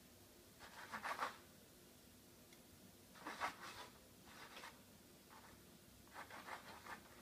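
A marker tip dragged across a white board as letters are written, in about five short, separate strokes.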